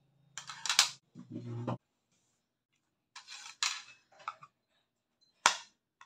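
Metal spoon and fork clinking and scraping against a plate of rice in a few short bursts, with one sharp clink near the end the loudest.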